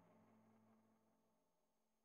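Near silence: the last faint tail of background music dies away within the first second, then the track goes completely silent.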